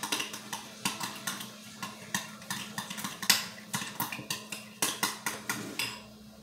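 A utensil clinking and scraping against a glass mixing bowl in quick irregular taps, about three or four a second, while the deviled-egg filling of yolks and mayonnaise is mashed and stirred. The tapping stops a little before six seconds in.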